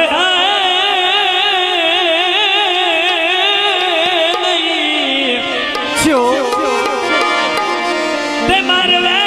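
Punjabi folk singing with harmonium: a man holds one long note with a wide vibrato for about five seconds over the harmonium's sustained chords. About six seconds in there is a sharp knock, and the harmonium carries on with steady held notes.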